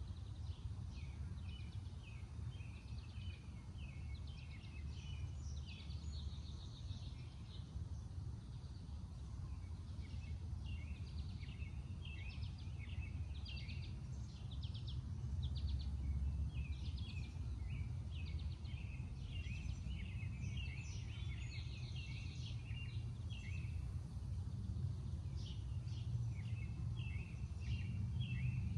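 Small songbirds chirping and singing in quick runs of short high notes throughout, over a steady low rumble.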